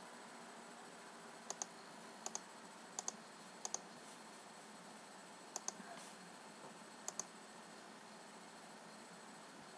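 Computer mouse clicking, faint: six pairs of quick clicks spread over several seconds, each pair two sharp clicks in close succession.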